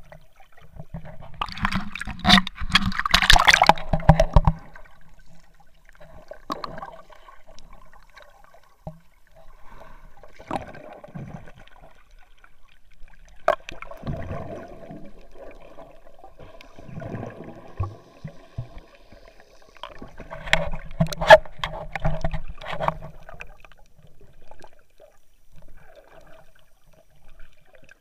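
Muffled water sounds picked up underwater while swimming: gurgling and bubbling, with louder bursts of sloshing and knocks about two to four seconds in and again around twenty to twenty-three seconds in.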